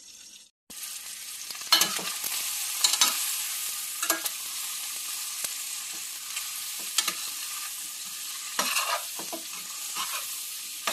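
Chicken feet sizzling in hot oil in a stainless steel pan, starting after a brief quiet moment under a second in, while a metal spoon stirs and scrapes them against the pan every second or so.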